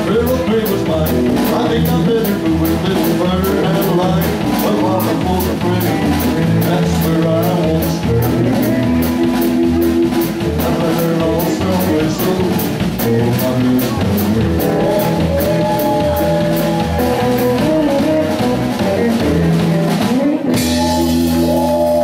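Live rock band playing: electric bass and drum kit with steady hi-hat ticks, and guitars. About twenty seconds in the band strikes and holds a sustained chord.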